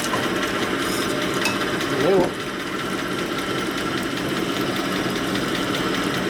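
Cylinder-honing machine running steadily, its stones turning inside a Harley-Davidson Sportster cylinder bore and rubbing it as the cylinder is stroked by hand to deglaze the bore. There is a brief louder sound about two seconds in, and after it the sound drops a little as the cylinder comes off the mandrel to be checked.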